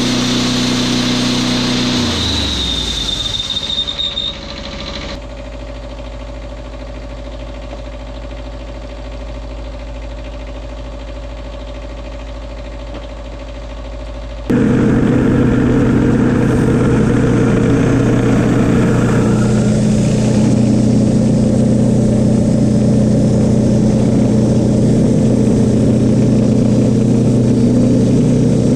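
Wood-Mizer portable bandsaw mill's engine running. A couple of seconds in it falls in pitch, slowing down, with a brief high whine; then comes a quieter steady hum. About halfway through, the loud running starts again abruptly.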